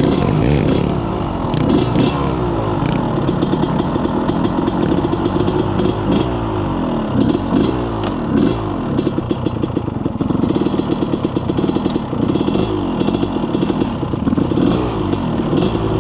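Single-cylinder four-stroke engine of a Yamaha YFZ450R sport quad with a full FMF exhaust, being ridden: the engine pitch climbs and drops again and again as the throttle is worked. There is scattered clattering throughout.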